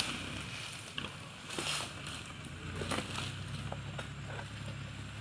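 Harvesting sickle on a long pole rasping and tugging at an oil palm frond, with a few short scraping strokes and small clicks. Underneath, a steady low engine hum that grows stronger a few seconds in.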